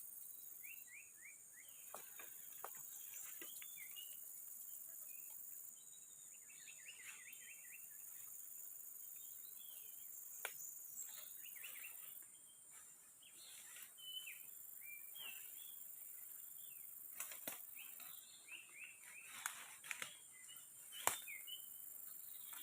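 Forest ambience: a steady high-pitched insect drone with birds chirping in short quick runs of notes, and a few sharp clicks or knocks, the loudest near the end.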